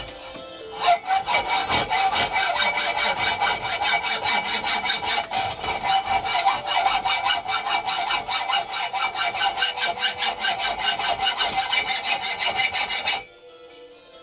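Hacksaw sawing with quick, even back-and-forth strokes. It starts about a second in and stops abruptly near the end.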